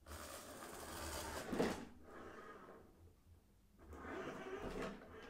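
RC4WD Gelande II D90 scale RC crawler driving in two bursts, its small electric motor and gearbox whirring, with a knock about a second and a half in.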